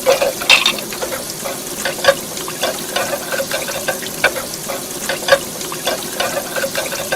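Dishes being washed: water running steadily with irregular clinks and knocks of dishes.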